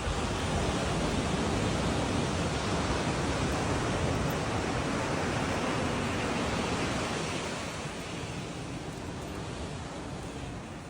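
A steady rushing noise, louder for the first seven seconds or so and then easing off.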